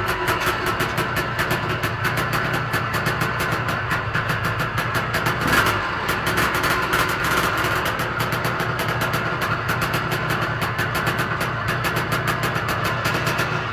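Yamaha DT 180's single-cylinder two-stroke engine running steadily at idle, with a slight swell about five and a half seconds in. It carries the strange noise the owner is trying to track down.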